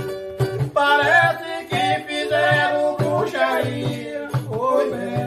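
A chula, a Bahian samba de roda song: a voice singing a wavering melody over plucked-string accompaniment and a steady low pulse.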